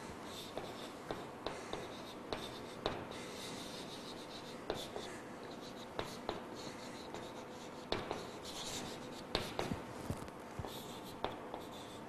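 Chalk writing on a blackboard: quiet, irregular taps and short scratches as letters are written out.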